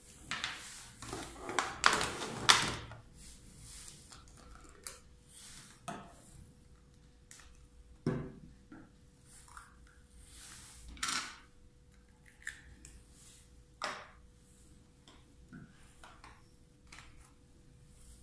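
Plastic breast pump parts being handled, twisted apart and set down on a tabletop: irregular clicks, knocks and rattles, busiest in the first few seconds, then scattered taps. A faint steady hum runs underneath.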